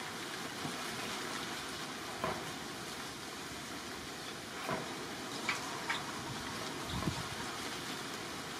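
Steady hiss of outdoor background noise, with a few short, faint clicks or knocks scattered through it.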